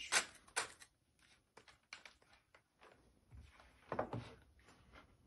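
Handling noise from a 3D-printed plastic acoustic coupler: scattered clicks and light knocks as it is moved and set down on a desk, a cluster in the first second and another about four seconds in.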